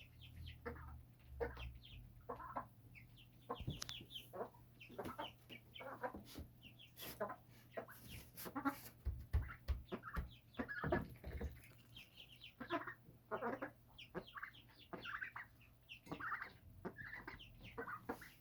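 A flock of birds raised on a rooftop calling continuously with many short, overlapping chirps and clucks.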